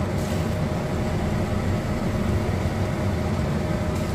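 Pot of beef offal stock at a boil on the stove: a steady low rumble with a faint constant hum.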